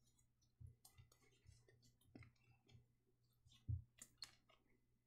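Faint soft thumps and small clicks of hands kneading and pressing dough on a countertop, with the loudest thump about three and a half seconds in.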